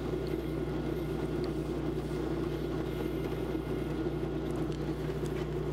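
Wood lathe running steadily, spinning a small rosewood workpiece with no tool or sandpaper against it: an even, unchanging hum.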